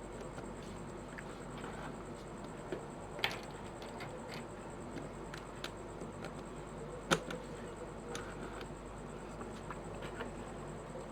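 Plastic pieces of a 5x5 puzzle cube clicking and tapping as they are fitted into the cube by hand: scattered small clicks, with two sharper ones about three and seven seconds in, over a faint steady hiss.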